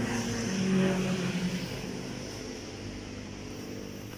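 A motorboat engine running with a steady hum, loudest about a second in and then fading away.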